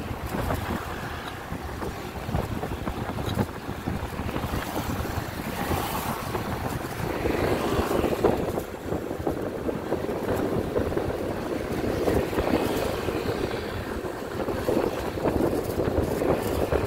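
Wind buffeting the microphone over the engine and road noise of a moving vehicle in traffic. The engine noise grows fuller from about seven seconds in.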